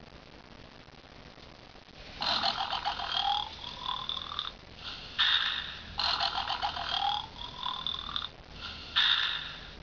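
Recorded snoring played from a Moai-head novelty tissue-box cover, set off by a tissue being pulled. It is thin-sounding, with no low end, and comes twice, about two and six seconds in. Each time a rattling snore of about two seconds rises a little in pitch, then a short puff follows.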